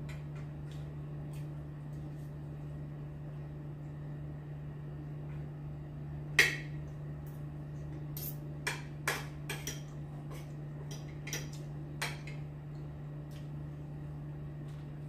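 Spoon and fork clinking against a plate while eating: scattered sharp clinks, the loudest about six seconds in and several more close together a few seconds later, over a steady low hum.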